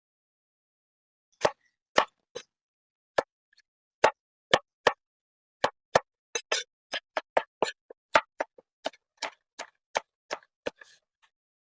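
A series of sharp knocks or taps, about two dozen in all, spaced irregularly and coming faster from about halfway through.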